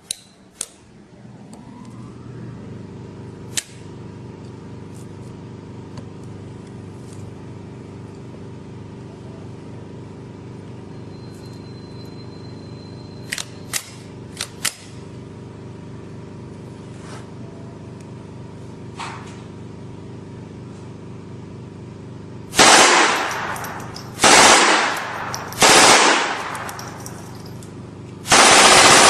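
A steady hum with a few sharp clicks, then a miniature .50-calibre-style machine gun fires four bursts of about a second each, starting about three-quarters of the way through.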